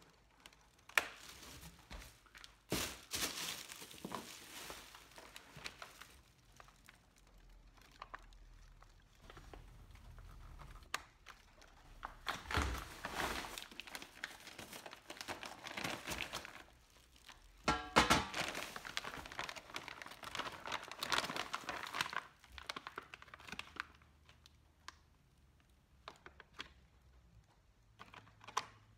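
Cardboard shipping box being slit open with a utility knife and pulled apart, with plastic wrap and a plastic parts bag crinkling and occasional sharp thunks as the box and contents are handled.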